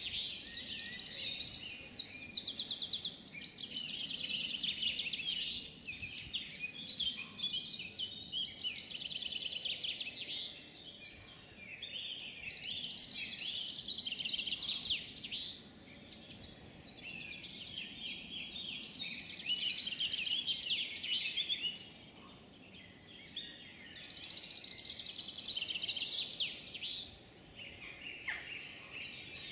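Woodland dawn chorus: several songbirds singing at once, with fast trilling phrases that swell and fade every few seconds over a faint background hush.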